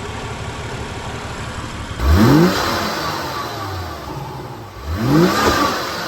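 BMW M2's N55 turbocharged straight-six idling, then revved twice in quick blips, about two and five seconds in, each falling back to idle; the stock air filter is still fitted.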